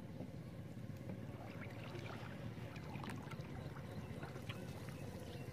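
Water trickling and splashing, with scattered small clicks and a faint steady hum.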